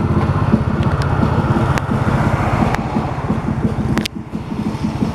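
Engine of a moving road vehicle heard from on board, a fast low throb, with wind noise over it and a few sharp clicks.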